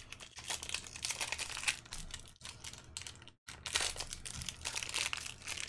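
Foil wrapper of a 2020 Topps Series One baseball card pack crinkling and tearing as it is ripped open by hand, a dense crackle with a brief pause about three and a half seconds in.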